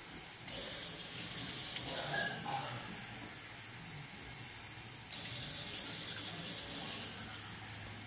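Kitchen faucet running water into a cup, in two spells: for about two seconds starting half a second in, then again from about five seconds in.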